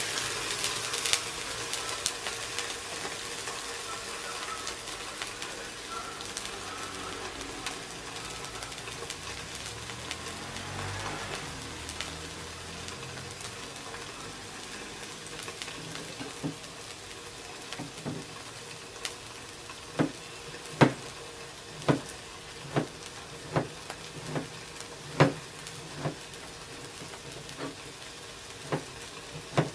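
A pangasius fillet sizzling steadily in a hot nonstick frying pan. From about halfway through, a knife slices an onion on a cutting board, knocking about once a second; these knocks are the loudest sounds.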